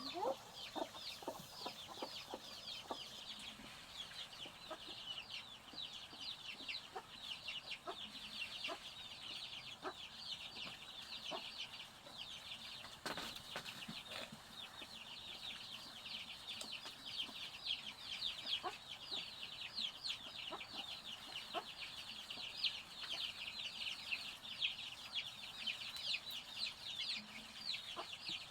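A flock of chicks peeping without a break, a dense chatter of short, high, downward-sliding cheeps, with a few faint knocks among them.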